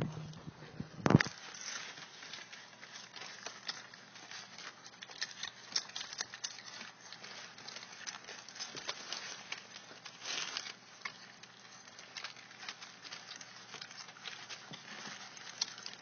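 Three-week-old pit bull puppies nursing from their mother, a steady run of small wet smacking and clicking suckling sounds, with one sharper click about a second in.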